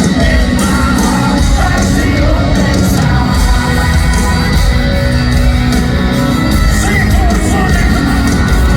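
Live country band playing in an arena, with a lead vocal singing over a heavy, loud low end and the crowd shouting along.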